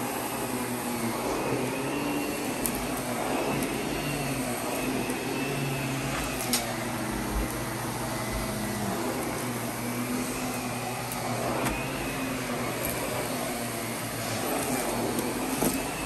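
Miele vacuum cleaner running steadily, its motor pitch rising and falling slightly, with a few short clicks.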